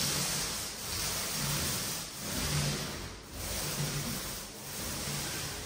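A second coat of white emulsion paint being applied to a wall: a swishing noise that swells and dips about once a second, one swell per stroke.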